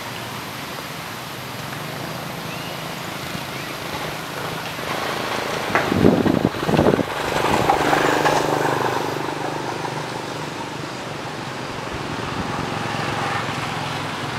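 Steady road traffic noise, with a louder passing vehicle about six to seven seconds in.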